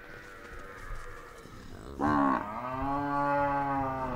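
A cow lowing: one long moo starting about two seconds in, rising at the onset and then held steady.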